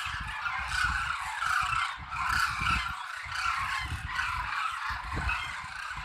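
A large flock of demoiselle cranes calling all at once, a dense, continuous chorus of overlapping calls. Wind buffets the microphone with irregular low rumbles.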